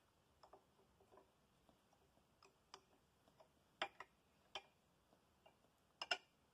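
Faint, irregular clicks and light knocks, a handful spread over several seconds, with the loudest a little under four seconds in and a quick pair about six seconds in.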